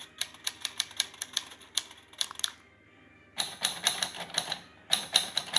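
Typewriter sound effect: rapid mechanical typewriter keystrokes clacking several times a second. About halfway through there is a short pause, then the typing starts again.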